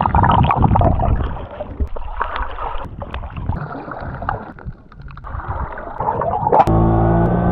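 Muffled underwater rushing of sea water around a camera on a selfie stick held by a snorkeler, with scattered clicks and knocks. About six and a half seconds in, a steady buzzing hum starts suddenly.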